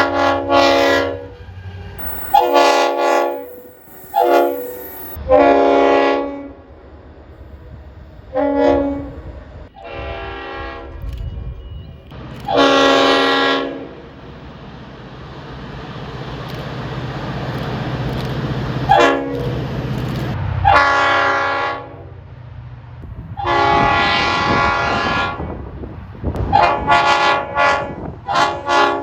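A series of train horns sounding, about ten blasts in all, some brief toots and some held for a second or more, each sounding several notes together. Between the blasts a passing train's rumble builds up, strongest from about 16 to 21 seconds in.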